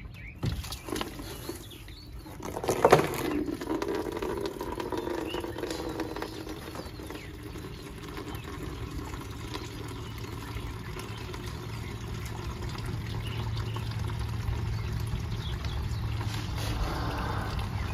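Hands working the washer pump and liner inside the wheel well, with a sharp knock about three seconds in, then windshield washer fluid trickling out of the reservoir into a bucket over a steady low hum.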